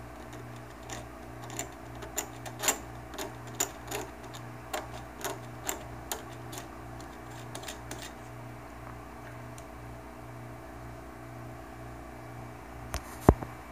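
Knife blade scraping and nicking through a copper trace on an LCD panel's control board, cutting the VGL supply line: a string of irregular sharp ticks and scratches for about the first eight seconds, then one louder click near the end. A low pulsing hum runs underneath.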